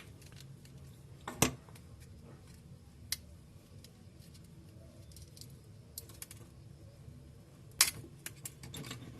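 Sharp clicks and light taps of small tools and parts during a smartphone teardown: two loud clicks, one about a second and a half in and one near the end, with scattered lighter ticks between.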